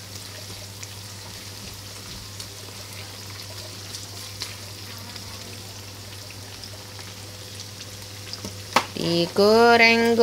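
Eggplant strips sizzling steadily in hot oil in a frying pan, with light crackles as a silicone spatula turns them. Just before the end a drawn-out, sing-song voice comes in.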